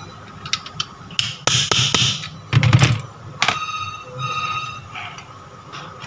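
Hammer tapping a steel pipe set over the shaft of a vacuum cleaner motor, driving the bearing bracket into place: a run of irregular metallic knocks and scrapes, loudest about halfway through, with a few short ringing tones.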